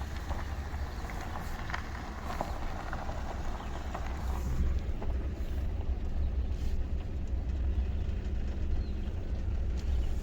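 Steady low rumble of a vehicle's engine and running gear, heard from inside the cab, with a few faint ticks about two seconds in.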